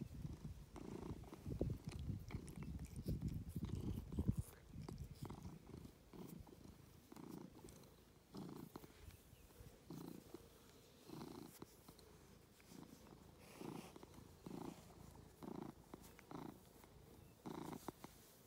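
Tabby cat purring as it is stroked, the purr swelling and fading with each breath in an even rhythm. It is louder for the first four seconds or so, then softer.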